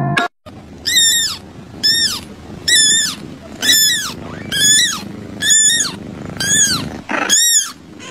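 A very young kitten mewing: about eight short, high-pitched cries, roughly one a second, each rising and falling in pitch.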